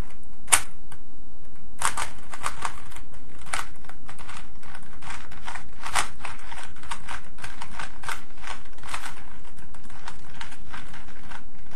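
Plastic Rubik's Cube faces being turned by hand, a run of irregular clacks, a few a second, over a steady background hiss.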